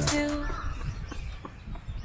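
A music track ends about half a second in, giving way to the murmur of a crowd outdoors: distant chatter, some of it children's voices.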